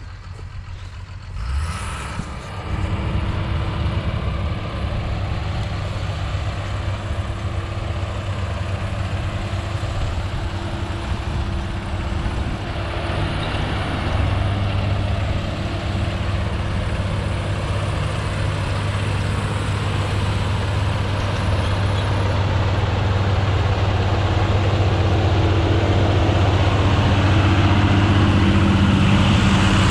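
Claas Arion tractor's diesel engine running steadily under load, growing gradually louder toward the end as it comes nearer.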